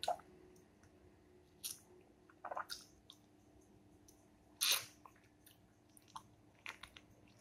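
Wet mouth sounds of a person eating soft ripe fruit: a handful of short slurps and smacks as the flesh is sucked and bitten off a slice held in the fingers, the loudest a little past halfway.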